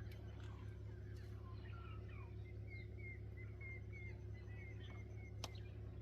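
A bird calls a quick run of short, repeated chirps, about three a second, over a steady low hum, with one sharp click near the end.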